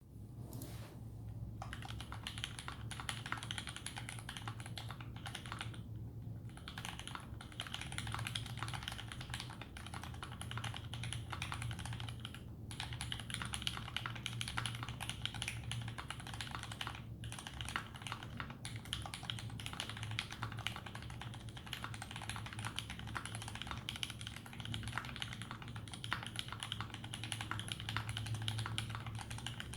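Typing on a Duck Lightsaver v1 custom mechanical keyboard with vintage Cherry MX Brown switches: fast, continuous key clacks broken by a few short pauses, over a steady low hum.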